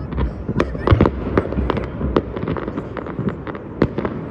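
Fireworks going off: many overlapping bangs and crackles several times a second over a steady low rumble, with the loudest bangs about a second in and near the end.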